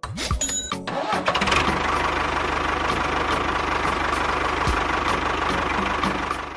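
A small engine starting up, then running steadily with a fast even chug, and cutting off near the end.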